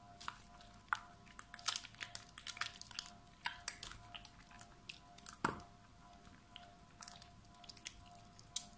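Hands squeezing and kneading soaked, mushy soap in soapy water: wet squishing with irregular crackling clicks, busiest in the first few seconds, with one louder snap about halfway through.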